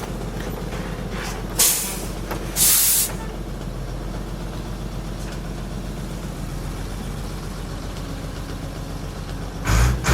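Skip loader lorry's diesel engine idling steadily, broken by sharp air hisses from its air brakes or pneumatics: a short one under two seconds in, a longer one about a second later, and another just before the end.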